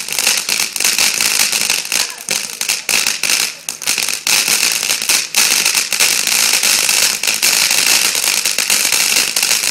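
Consumer ground fountain firework spraying sparks: a steady, loud hiss full of dense crackling, with no big bangs.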